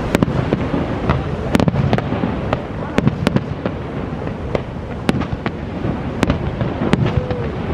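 Fireworks bursting: about a dozen sharp bangs and cracks at uneven intervals, over the steady rush of water from Niagara Falls.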